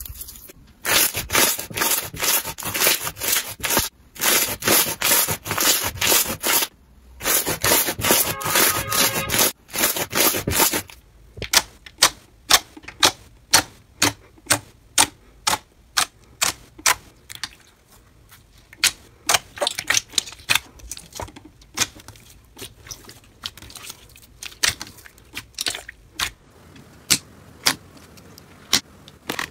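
Hands squeezing foam-bead slime, a dense crunchy crackling with two short breaks. After about eleven seconds it gives way to slime being pressed, with trapped air pockets popping in sharp clicks, about one or two a second.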